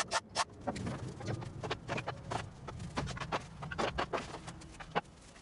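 Scattered knocks and clunks of wood as an assembled bed side frame of construction-lumber posts and rungs is handled and lifted upright. A rhythmic music beat ends about half a second in.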